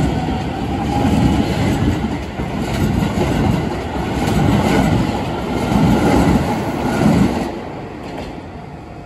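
Keisei Line electric commuter train running through a level crossing: wheels on rail, with the rumble swelling and easing in a steady rhythm as each bogie passes. The sound fades away near the end as the last car clears the crossing.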